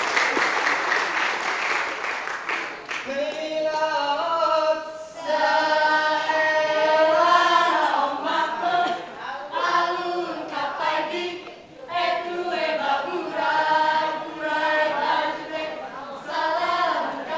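Applause dying away over the first three seconds, then the dancers of a Rampai Aceh group singing together unaccompanied, in a chant-like song that accompanies the dance.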